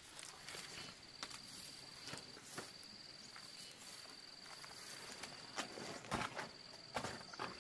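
Large fresh banana leaves rustling and crackling as they are handled and laid on the ground, with two louder rustles near the end. Behind it an insect trills steadily at a high pitch in repeated stretches of about a second.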